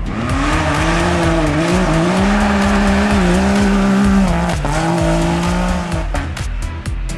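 Rally-raid car engine running hard at high revs, its pitch dipping briefly and climbing again three times before it fades about six seconds in. A steady music beat comes through underneath.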